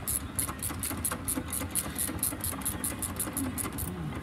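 Hand ratchet clicking in a steady rhythm, about five clicks a second.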